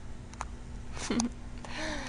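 Siamese cat meowing softly: a short call falling in pitch about a second in, and a fainter one near the end.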